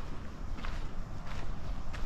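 A hiker's footsteps on a dirt forest trail, about four even steps, one every two-thirds of a second, over a steady low rumble.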